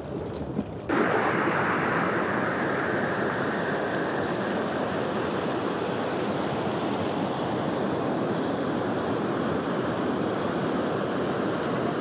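Steady loud rush of a fast-flowing mountain river, starting abruptly about a second in.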